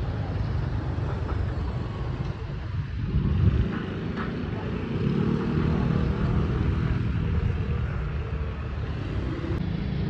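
Street traffic: motor scooters and cars running past in a steady low rumble, swelling a little about three seconds in and again around five seconds.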